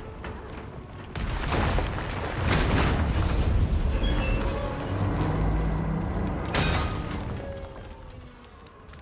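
Film sound mix of a train carriage breaking away and falling: a deep rumble of straining metal with three heavy crashes over a dramatic music score, dying down near the end.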